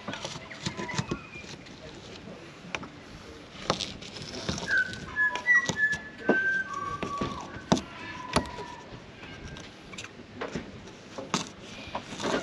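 Old silicone sealant being scraped off a caravan roof around a roof-hatch opening: irregular scrapes and clicks. A string of short whistled notes at different pitches runs through the middle.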